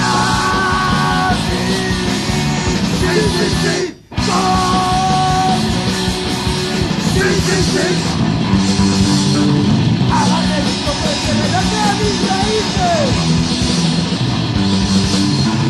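Punk rock band playing: distorted electric guitar, bass and drums at full tilt, with a split-second stop about four seconds in. Vocals come in about seven seconds in.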